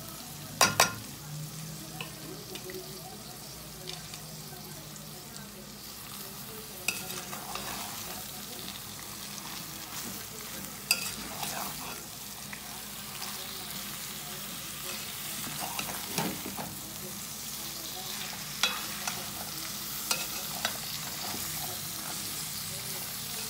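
Food sizzling steadily in a pot as sliced onions and bell peppers are tipped in with a loud clatter about a second in. A spoon then stirs the mix, scraping and knocking against the metal pot now and then.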